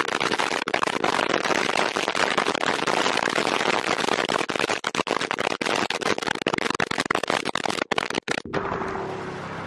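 Heavy wind buffeting on a microphone held out of a car window at highway speed, harsh and crackling with brief dropouts. About eight and a half seconds in it cuts to a quieter, steady engine hum.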